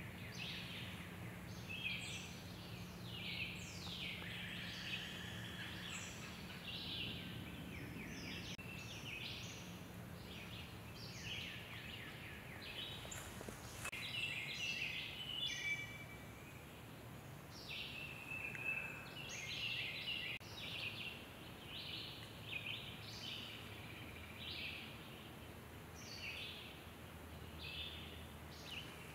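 Spring woodland bird chorus: several birds singing and calling at once in short, high chirps and trills throughout, over a faint steady low hum.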